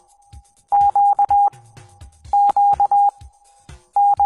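Morse code (CW) tone keying the letter Q, dah-dah-di-dah, in one steady pitch, sent over and over about every second and a half.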